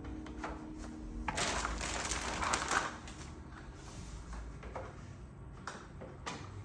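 Bed slats and plastic slat shoes being handled and pressed into the side rail of a slat bed: a scraping rustle for about a second and a half, about a second in, then a few separate clicks and knocks.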